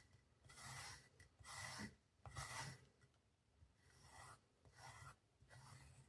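Faint rubbing strokes, about six in uneven succession, each lasting half a second to a second, from a pocket knife being cleaned.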